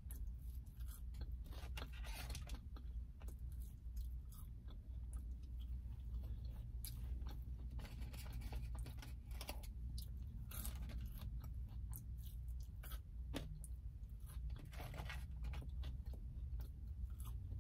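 Close-miked chewing of McDonald's french fries, with wet mouth sounds and frequent small crunches and clicks, over a steady low hum.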